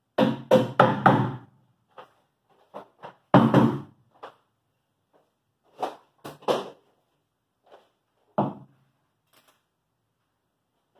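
Knocks and thumps on the plywood skiff hull as its parts are handled and a bulkhead is fitted: four quick knocks at the start, a heavy thump about three seconds in, then a few scattered lighter knocks.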